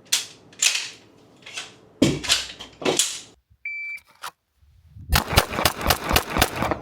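Pistol gunfire on a shooting range, the shots trailing off in echo, during the first three seconds. About halfway through a shot timer beeps once, and a rapid string of shots from the Fusion Firearms XP Pro double-stack 1911 follows in the last two seconds.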